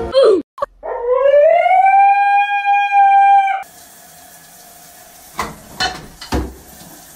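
A short falling cry, then a long howling call that rises in pitch for about a second and holds steady, lasting about three seconds before it stops abruptly. After it, a quieter background with a few soft knocks.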